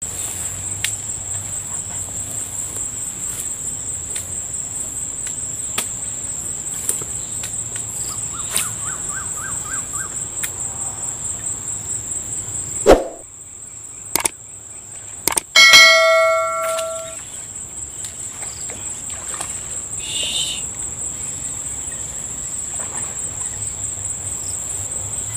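Insects droning in a steady high-pitched chorus. About halfway through, a sharp knock and a brief drop-out, then a single bell-like ding that rings and fades over about a second.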